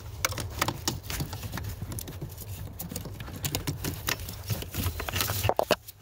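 Irregular small clicks and rustles from gloved hands handling plastic trim pieces and the brake light switch's wiring harness under a car's dashboard.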